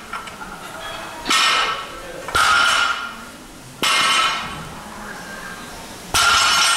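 Loaded barbell clanking during deadlift reps: four sharp metal clanks of iron plates, each with a short ring, spaced one to two seconds apart.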